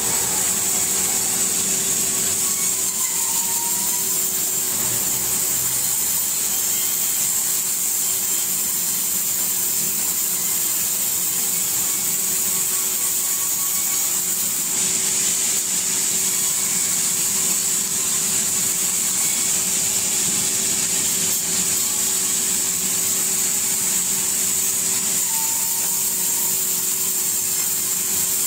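Sawmill band saw running steadily while it rips a log lengthwise, with a constant hum and a high whine.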